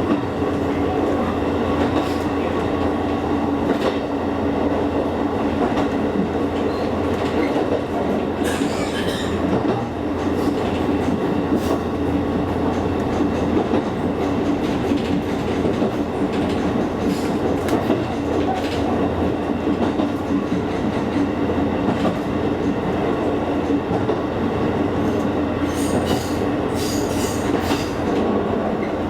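Electric train running along the line, heard from inside the car: a steady running rumble with a constant hum and occasional wheel clicks. Brief high-pitched wheel noise comes about 9 seconds in and again near the end.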